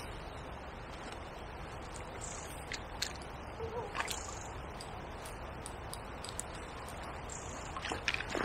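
A hooked chub splashing at the water's surface as it is drawn over a landing net, with water sloshing and a few short sharp splashes, about three seconds in, at four seconds and near the end.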